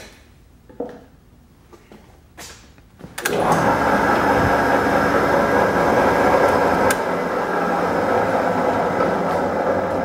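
A metal lathe switched on about three seconds in, then running steadily with its chuck spinning; a few light clicks before it starts.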